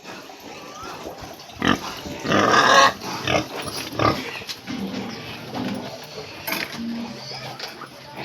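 Pigs grunting and squealing, with a series of short calls. The loudest is a harsh squeal a little over two seconds in, lasting about half a second, followed by lower grunts.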